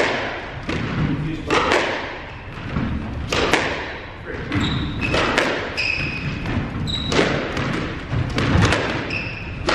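Squash ball struck by rackets and hitting the court walls and wooden floor: a string of sharp, irregular thuds that echo in the enclosed court. Short high squeaks of sneakers on the floor come in the middle and again near the end.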